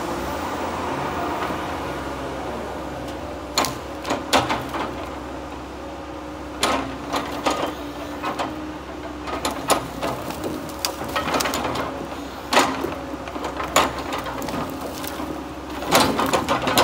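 Tigercat 234B knuckleboom log loader running steadily, its engine and hydraulics holding a drone with a few steady tones. From about three and a half seconds in, a series of sharp knocks and clatters come at irregular intervals as the grapple works into the pile of pine logs and the logs knock together, loudest near the end.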